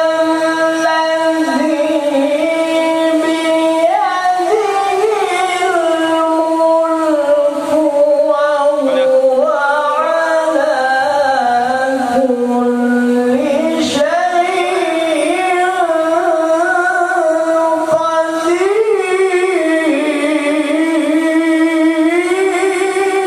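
A qori's melodic Quran recitation (tilawah): one voice holding long, drawn-out notes that bend and ornament up and down, with a short break about fourteen seconds in.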